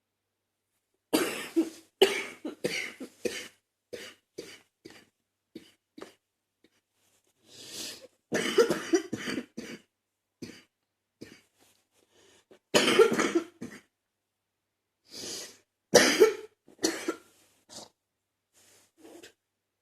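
A woman's wet, chesty cough coming in about four loud fits of several coughs each, with smaller single coughs between them, as she tries to clear her chest.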